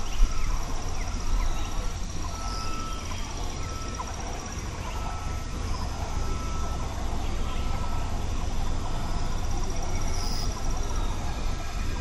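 Rural countryside ambience: songbirds chirping and calling over a steady, high, pulsing insect buzz. From about two seconds in, one bird repeats a short steady note about once a second. A low steady rumble runs underneath.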